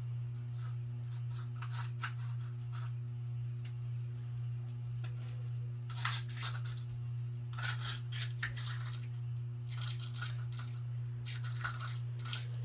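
Scratchy strokes of a small eyebrow brush-comb drawn through the eyebrows, in short clusters a few seconds apart, over a steady low hum.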